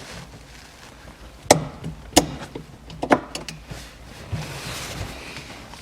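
A handful of sharp clicks and knocks, spaced irregularly, as the pivot pin of a Lada Priora's gear-shift lever is pushed out of the shift-rod support from behind the tube.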